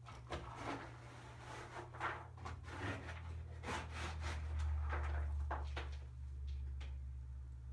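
Kittens' paws and claws scrabbling and scratching on a rug, with scattered soft knocks and rubs that thin out after about five seconds. A steady low hum runs underneath.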